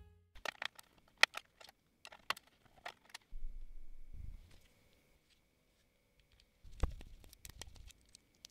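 Handling noise from an integrated stepper motor and its plastic plug-in terminal connectors: a quick series of sharp clicks and rattles, a low bump about halfway, and a louder click near the end as a screwdriver works a terminal.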